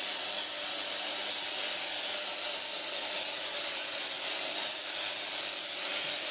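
Home-built spark-gap Tesla coil running, with an electrical discharge streaming from its toroid: a steady, loud hiss.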